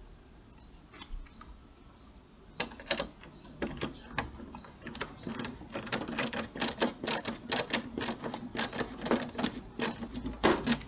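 Screwdriver driving a screw into the plastic casing of an Epson L120 printer, clicking repeatedly like a ratchet. The clicks are sparse at first and come about three a second from about halfway through.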